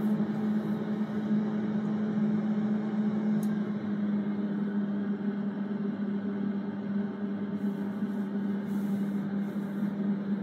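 Bagotte digital air fryer running at cooking temperature: a steady hum from its fan motor, with a gentle whooshing of air.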